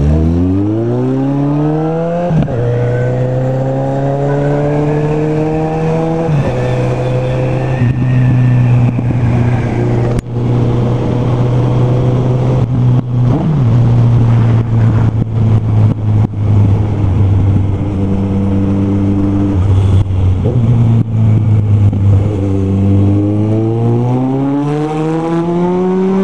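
Inline-four motorcycle engine with an aftermarket exhaust, heard from on the bike: it revs up hard from low speed with gear changes about two and six seconds in, holds a steady cruise, and climbs in revs again near the end.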